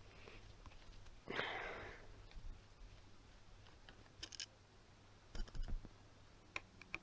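A quiet sniff about a second in, then a few faint clicks and soft knocks from small parts of a DVD writer being handled and unscrewed.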